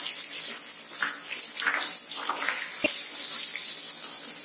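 Chopped onion sizzling in hot oil in a nonstick pan while a spatula stirs it, with one sharp tap of the spatula about three seconds in.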